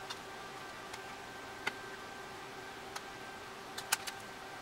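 Scattered sharp clicks of a blade prying at the case of a 3rd-generation iPod, a few seconds apart, with a quick run of three clicks near the end.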